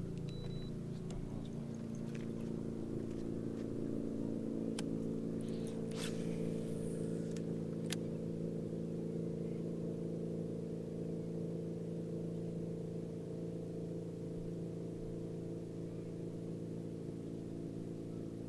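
Boat motor running at a steady pitch, with a few faint clicks about five to eight seconds in.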